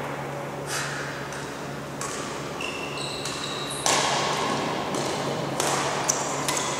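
Badminton rally: rackets strike the shuttlecock in sharp cracks every second or two, and court shoes squeak high on the sports-hall floor in between, all echoing in the hall over a steady low hum.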